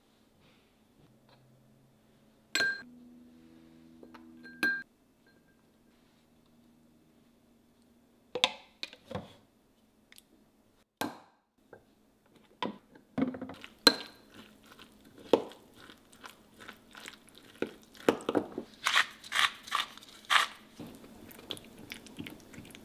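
Kitchen utensils on glass: two sharp clinks a couple of seconds apart near the start, then a spatula mashing and stirring boiled egg yolks with mayonnaise in a small glass jar, giving soft squelches and quick taps and scrapes that come thick and fast near the end.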